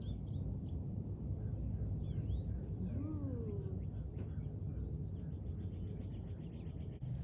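Birds chirping, with a quick trill around five seconds in, over a steady low rumble. A single cat meow rises then falls about three seconds in.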